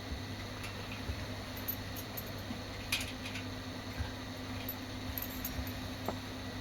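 Victor BR-6400 VHS deck winding tape at speed in fast-forward or rewind: a steady mechanical whir with a low hum, and scattered small ticks and clicks, one sharper tick about three seconds in.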